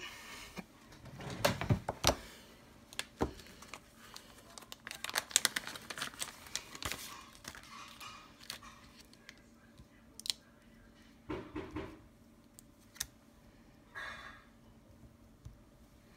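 Small clear stamps being peeled off their thin plastic backing sheet: irregular crinkling of the plastic with scattered small clicks and taps.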